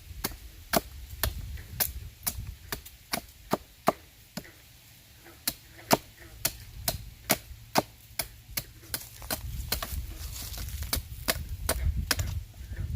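Repeated sharp blade strikes cutting into a piece of wood, about two to three a second, with a short pause about halfway through, as the wood is carved down to shape.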